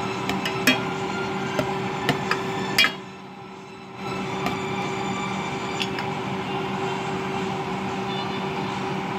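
A metal spoon clinks and knocks against an enamel pot while ground pork and tomatoes are stirred, several sharp taps in the first three seconds and only a couple later, over a steady hum.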